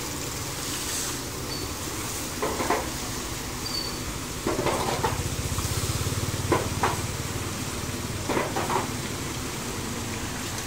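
Shallow floodwater splashing and sloshing as rubbish is scraped and pulled out of a clogged street drain, in a handful of short splashes. About halfway through, a small motorbike rides through the water, its engine a low hum under the spray.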